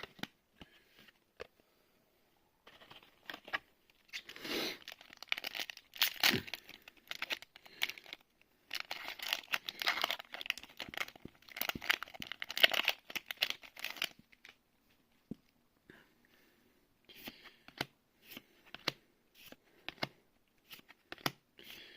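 A trading-card booster pack's foil wrapper being torn open and crinkled in two stretches of rustling, followed by scattered light ticks of handling.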